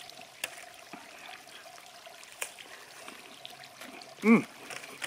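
Wind rushing over the microphone, with a few light clicks of food packets being handled, and one short, loud pitched sound about four seconds in that falls steeply in pitch.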